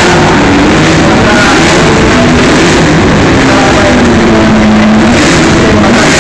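Several Super GT race car engines running loud as the cars pull past in a group, their engine notes rising and falling in pitch.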